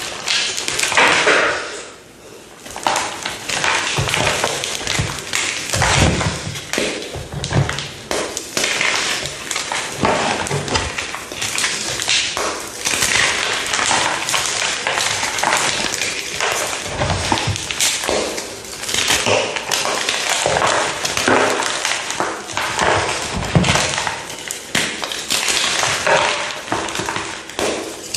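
A brittle material being pressed and crushed, giving a dense, continuous run of crunches, crackles and pops with a few heavier thuds.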